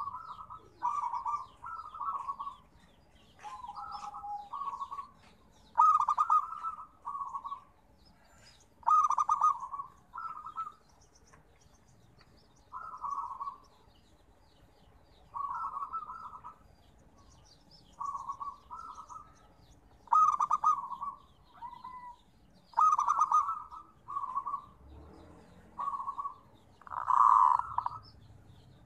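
Zebra dove (perkutut) cooing: short runs of soft, quick coo notes repeated every two to three seconds, the loudest run near the end. Faint high chirps of other birds are behind it.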